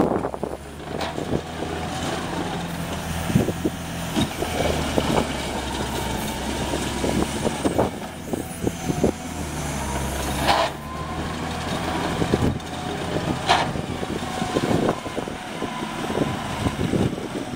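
IHI CL35 compact track loader running, its engine a steady low drone under frequent metallic clanks and knocks, with two short hissing bursts about ten and thirteen seconds in.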